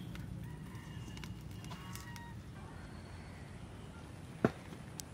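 Light rain falling, with scattered drips from a thatched roof's eaves. There is one sharp tap about four and a half seconds in.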